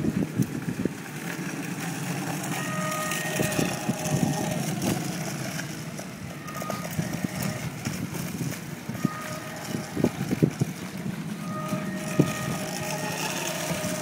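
600 W electric personal rover in motion: short, steady electric-motor whines come and go over the rumble of its small wheels on asphalt, with scattered knocks. A rising whine sounds near the end.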